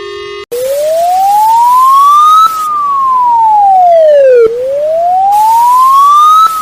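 Wailing siren alarm from a fan-made emergency alert: one tone slides up for about two seconds, then back down for two, and repeats, over a steady hiss. It cuts in about half a second in, replacing a steady buzzing tone.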